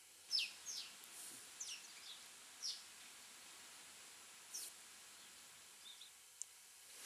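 Sparrow chirping: a quick run of short chirps, each falling in pitch, over the first three seconds, then one more a little later, over a faint hiss.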